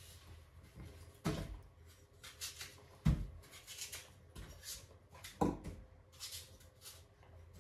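A kitchen knife cutting straight down through crisp fruit: three dull knocks of the blade about two seconds apart, with lighter crisp cutting and scraping sounds between.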